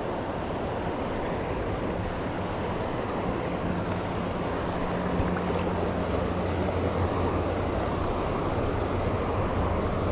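Steady rush of flowing river water, with a faint low hum underneath from about two seconds in.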